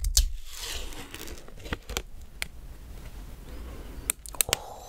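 Thin plastic pudding cup and its clear plastic lid handled close to the microphone: scattered sharp clicks and light crinkles of plastic.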